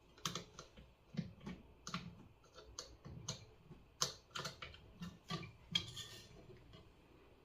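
Light, irregular clicks and taps of tiny screws, a small screwdriver and the small hard pieces of an electronics kit being handled and fitted, about two or three a second, with a brief scrape about six seconds in.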